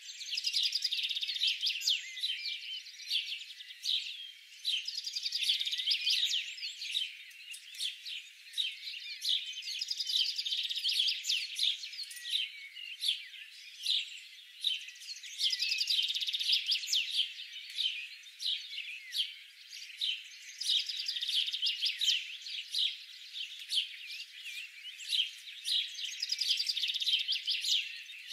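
A chorus of small songbirds chirping and trilling, many short calls overlapping without a break, with no low sounds beneath them.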